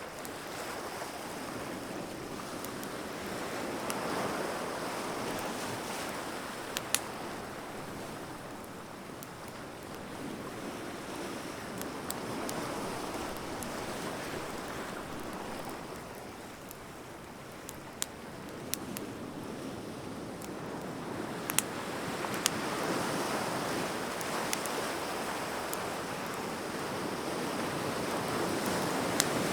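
Wood bonfire crackling, with scattered sharp pops, over surf that slowly washes in and recedes every several seconds.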